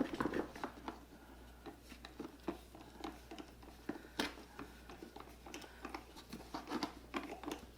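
Light, irregular clicks and taps of plastic parts and small bolts being handled while a pressure washer is put together, with one sharper tap about four seconds in.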